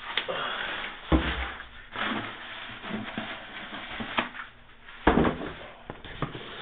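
Sneakers and their packaging being handled: rustling with several light knocks and thumps as the shoes are turned over in the hands.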